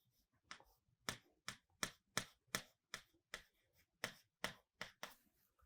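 Faint, short clicks of a pen tapping and stroking a writing surface, about eleven of them at roughly two or three a second.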